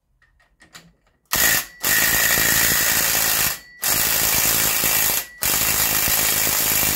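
Cordless impact driver hammering on a chainsaw clutch nut to break it loose, the piston held by rope packed in the cylinder. A short burst about a second in, then three longer runs of rapid impacts with brief pauses between.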